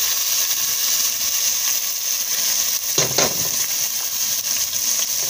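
Raw rice frying in hot oil in a stainless steel pot: a steady sizzle with fine crackling as the grains start to toast, with one brief louder sound about three seconds in.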